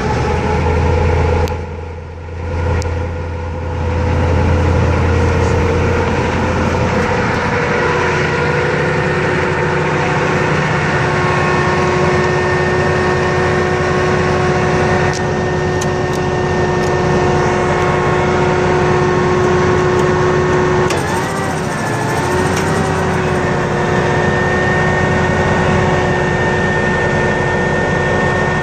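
M1031 CUCV's 6.2-litre diesel V8 running steadily at governed speed, driving its PTO generator, which is putting out 60 Hz. Steady whining tones sit over the engine note. About two-thirds of the way through, the pitch sags briefly and recovers.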